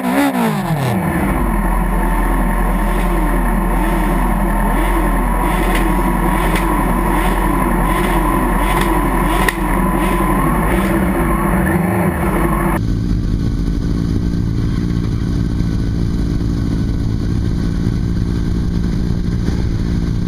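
Vehicle engine being revved, the revs dropping about a second in, then running steadily with a rhythmic rise and fall in pitch. The higher part of the sound cuts out suddenly about two-thirds of the way through.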